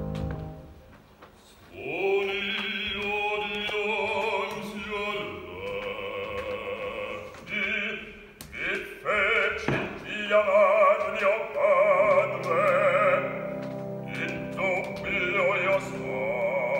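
Operatic bass voice singing in Italian with wide vibrato over sustained low orchestral notes. The orchestra alone fades in the first second, and the voice enters about two seconds in.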